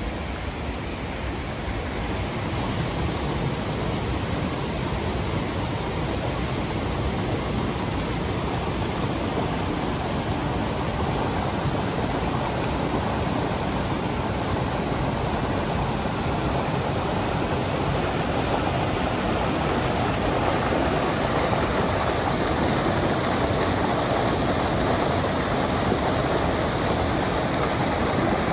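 Clear mountain stream rushing over rocks and boulders in small cascades: a steady wash of water that grows gradually louder.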